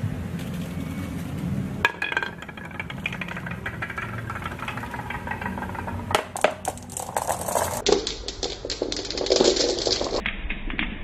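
Glass marbles rolling down a grooved wooden track and clacking against one another and the wooden board, with a low rolling rumble at first, then many irregular sharp clicks, thickest in the middle.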